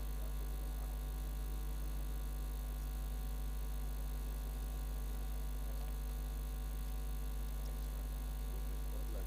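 Steady low electrical mains hum with its overtones, unchanging throughout, with nothing else standing out.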